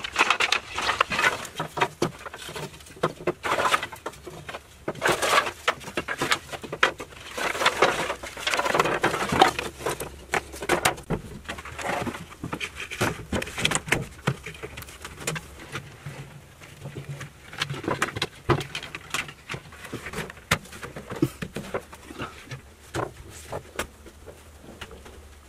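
Irregular knocks and clatter of bamboo poles being handled, with birds calling in the background.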